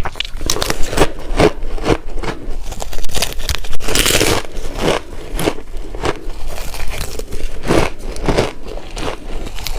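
Shaved ice being chewed close to the microphone: a steady run of crisp crunches, about two a second, with one longer gritty crunch about four seconds in.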